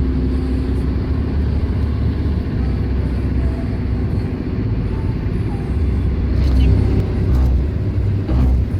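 Steady low rumble of a moving vehicle, heard from inside, with a faint hum and faint voices near the end.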